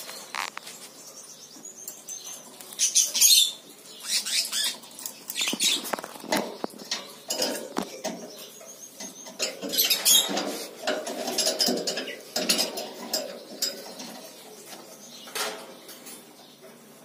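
A rainbow lorikeet clambering about a wire cage: irregular clinks and rattles of beak and feet on the metal bars and wooden perch, with brief wing flutters. The loudest bursts come about 3 seconds in and again about 10 seconds in.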